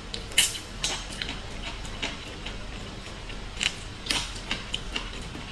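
Eating small sea snails: irregular sharp clicks of the shells and sucking, a few of them louder about half a second in and again near four seconds.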